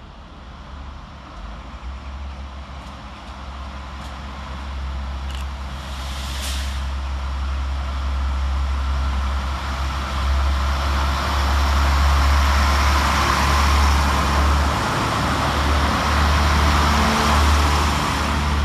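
Windhoff multi-purpose vehicle pair working as a rail-head treatment train, running through the station under diesel power: a steady low engine hum and rising hiss that grow louder over the first ten seconds and stay loud near the end.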